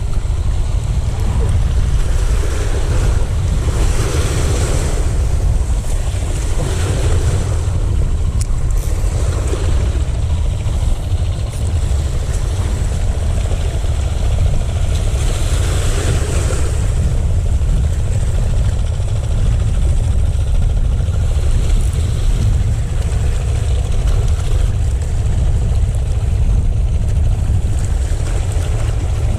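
Wind buffeting the microphone with a steady low rumble, over sea waves washing in, with several louder swells of surf.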